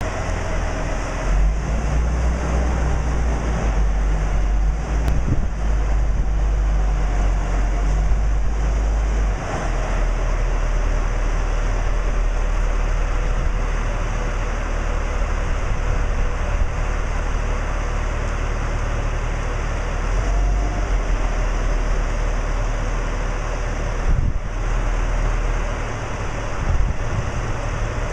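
Wiggins Marina Bull boat forklift running while lifting and placing a boat on its forks, a steady low engine rumble that shifts in level a few times as the lift works.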